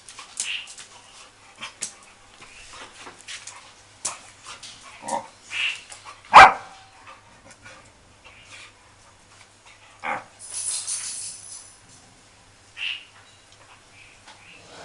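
Dogs barking and yipping now and then as they play, with one loud sharp bark about six seconds in and a brief hissing noise a little later.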